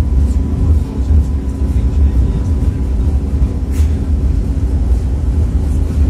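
Tatra T3SUCS tram running along the street, heard from inside the car: a steady low rumble with a faint steady whine above it, and a single sharp click about four seconds in.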